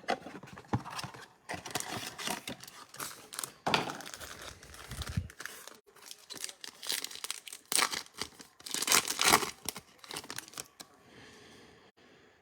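Foil trading-card pack wrapper being torn open and crinkled by hand, in irregular rustles with louder stretches about four seconds in and again around nine seconds, dying down near the end.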